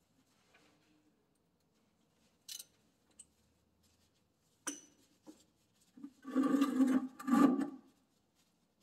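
Light clicks and taps of a hand tool on a compact tractor's hydraulic drain plug as it is worked loose from underneath. About six seconds in come two loud, drawn-out squeaky scrapes, one after the other.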